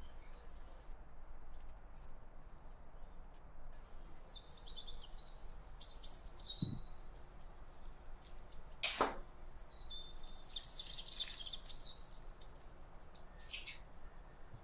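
Birds chirping off and on, with light handling noises: a soft knock about six and a half seconds in and a sharp click about nine seconds in as miniature utensils and a small plastic packet are handled.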